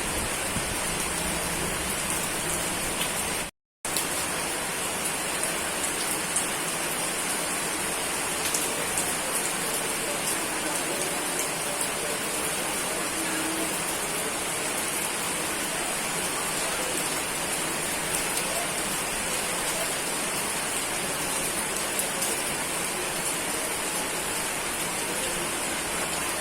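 Steady heavy rain falling, an even hiss with fine patter of drops. The sound cuts out completely for a moment about three and a half seconds in, then resumes.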